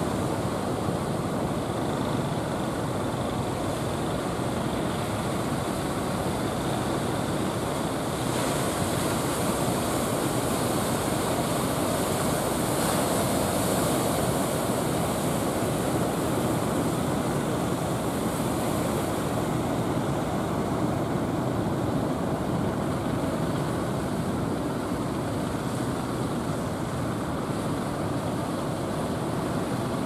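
Steady rush of surf breaking at a river-mouth inlet, mixed with the drone of large fishing boats' engines as they push in through the waves.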